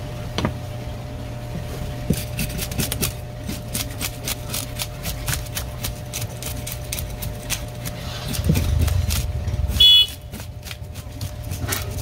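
A steady low machine hum with a run of irregular clicks and taps, and a brief loud squeak about ten seconds in.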